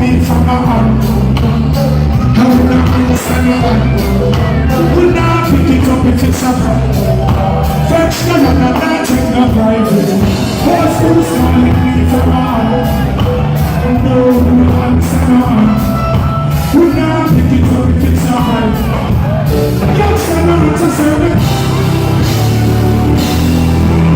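Loud live concert music: a vocalist singing over a heavy, pulsing bass line and a steady drum beat.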